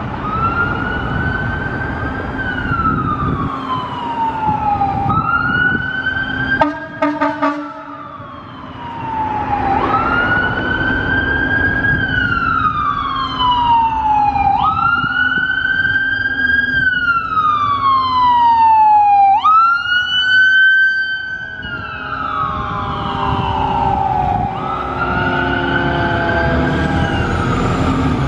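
Federal Q mechanical siren on a Pierce fire engine, winding up and coasting down over and over: each cycle a quick rise, then a long falling wail, over the low rumble of the truck. A short air horn blast about seven seconds in.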